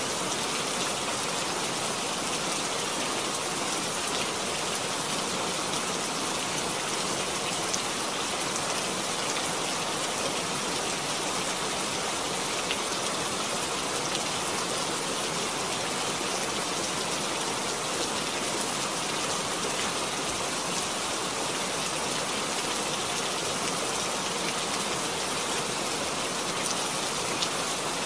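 Steady rain falling: an even hiss with a few sharper drops now and then.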